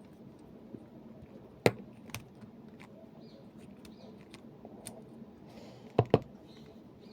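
A few sharp metallic clicks and clinks from a PACLOCK 90A-PRO padlock and its small parts being handled during disassembly: one loud click about a second and a half in, a lighter one soon after, and a close pair of clicks near the end.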